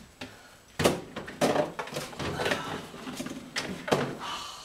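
Clatter of gear being shifted and packed, with a 5-gallon plastic bucket knocking against other things. A sharp knock comes about a second in, more knocks and rustling follow, and two more knocks come near the end.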